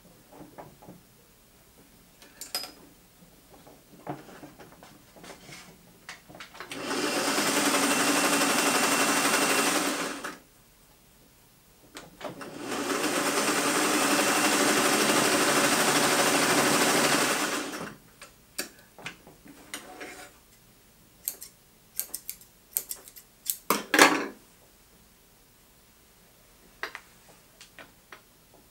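Vintage Singer sewing machine running as it stitches a test seam, in two steady runs of about three and five seconds with a short stop between. After that come scattered clicks and knocks as the cloth is handled and taken out, one sharper knock standing out near the end.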